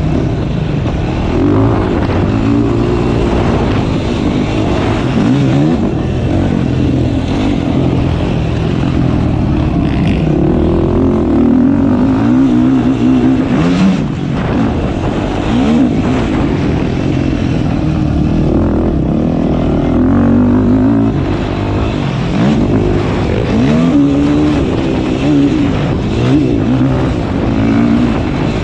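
Yamaha YFZ450R quad's single-cylinder four-stroke engine being ridden hard around a motocross track, revving up and backing off again and again, its pitch rising and falling every second or two.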